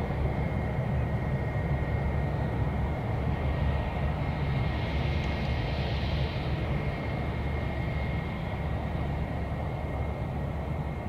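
Distant jet airliner passing high overhead: a steady low rumble with a faint, steady high tone over it. A hiss swells in the middle, then fades.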